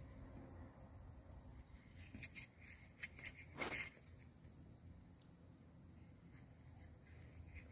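Faint scraping of a thumb rubbing dirt off a small flat metal plate: a few light strokes about two seconds in and a louder rub a little before the four-second mark, over a quiet low rumble.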